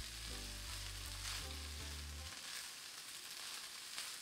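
Rice sizzling in a hot wok as it is stirred and tossed with a silicone spatula, toasting in the pan, with a few light scrapes. A low hum underneath stops about halfway through.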